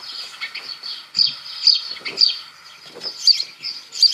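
House sparrow chirping: a recording of short, repeated high chirps, roughly two a second, the plain "pío pío" call of the species.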